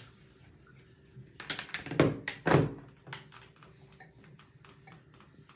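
A few knocks and thunks, the two loudest about half a second apart near the middle, followed by faint light ticks.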